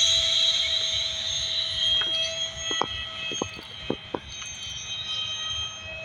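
Electric ducted-fan motor of a Banana Hobby F-22 RC jet in flight: a steady high whine that slowly fades as the jet moves away. A few short clicks fall around the middle.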